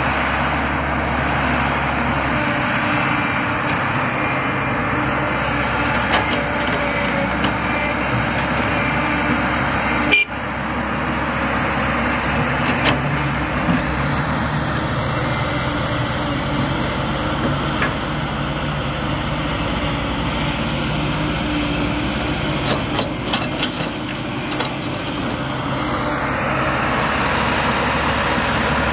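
Caterpillar 312C excavator's diesel engine running steadily as it digs and loads, with occasional clunks of soil and rocks dropping from the bucket into a dump truck's bed.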